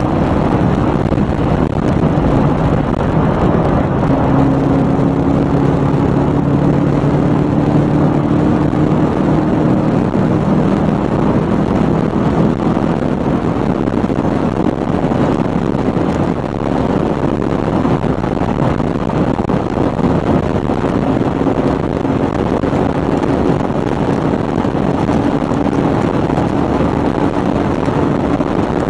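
Car engine and wind and tyre noise heard from inside the cabin at over 250 km/h, a steady loud rush with an engine drone that climbs slowly in pitch as the car accelerates.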